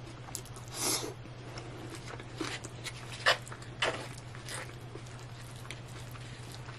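Close-up eating sounds: chewing a mouthful of burrito bowl while a fork scoops and clicks in the bowl, giving a run of short smacks and clicks, the sharpest a little after three seconds and near four seconds, over a steady low hum.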